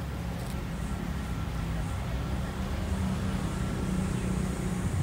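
Diesel locomotive engines idling: a steady low rumble that grows a little louder in the second half, with faint voices in the background.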